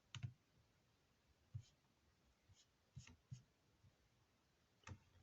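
A few faint, scattered clicks and taps on a laptop's keys and touchpad, about six of them, against near silence.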